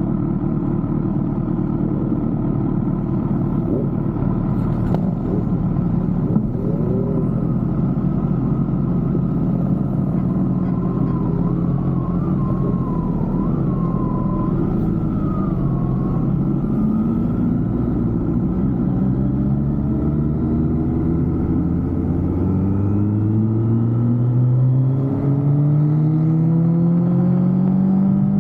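A vehicle engine running under way. Through the second half its pitch climbs steadily as it speeds up, then it drops sharply right at the end, as at a gear change.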